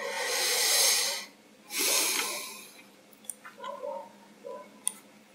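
Two heavy breaths close to the microphone, each about a second long and half a second apart, followed by a few faint mouse clicks.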